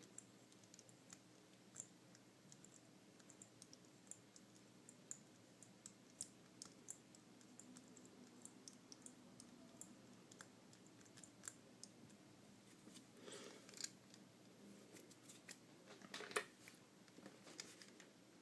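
Faint, irregular clicking of an Abus 155/40 combination lock's number wheels being turned one at a time while the shackle is pulled under tension, to feel for each correct digit. Two slightly louder handling sounds come near the end.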